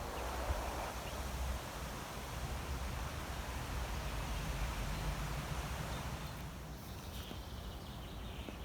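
Outdoor ambience: wind buffeting the microphone and leaves rustling, with a bird calling a few times near the end.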